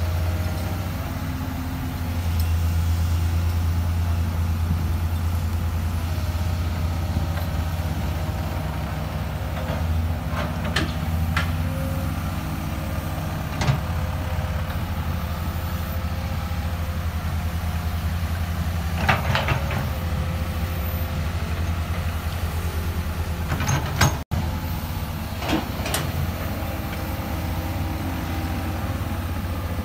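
Excavator's diesel engine running steadily, with a few short sharp metallic clanks from the working machine.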